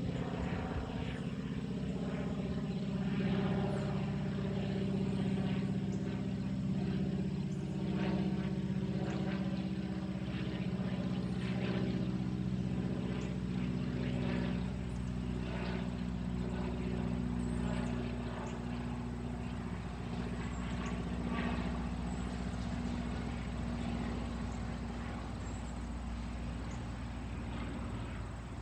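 Boeing Stearman biplane's radial engine and propeller running as it flies over, a steady pitched drone that is loudest in the first half and slowly fades toward the end.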